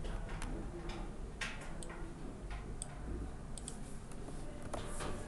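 Irregular clicks of a computer mouse and keyboard, some in quick pairs, over a low steady hum.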